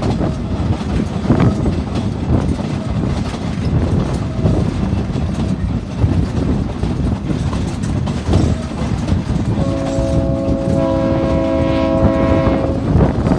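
Train rolling along the rails with a steady rumble and clatter. About ten seconds in, the locomotive's horn sounds one long chord blast of about three seconds, with more notes joining partway through.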